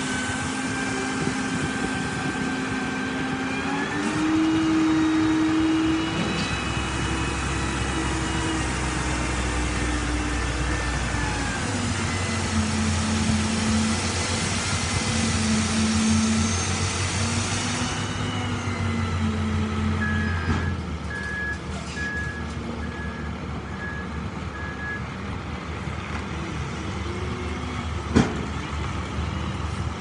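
Peterbilt semi-tractor's diesel engine running at raised revs to drive the hydraulic hoist of an end-dump trailer as the bed lifts, its pitch stepping up and down. About two-thirds of the way in, a backup alarm gives a short run of about six beeps, and a single sharp knock sounds near the end.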